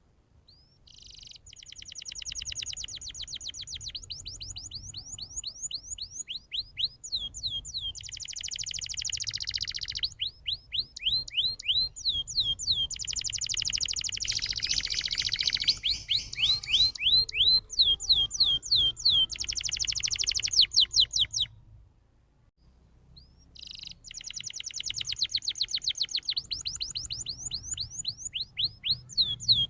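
Domestic canary singing a long, fast song of rapid trills and quickly repeated sweeping notes. It breaks off for about two seconds roughly three quarters of the way through, then starts again.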